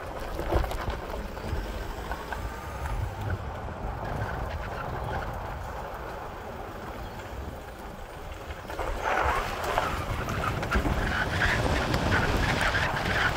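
Vehicle driving, heard from inside the cab: a steady low rumble of engine and road noise, with tyres crunching and crackling on loose gravel that grows louder about nine seconds in, where the road turns from pavement back to dirt.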